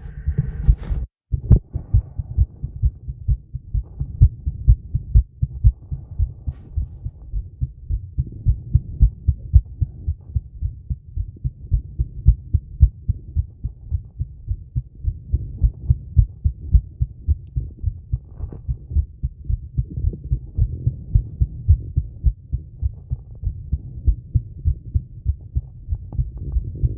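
A woman's heartbeat: a quick, even train of low lub-dub thumps, raised by a plank exercise.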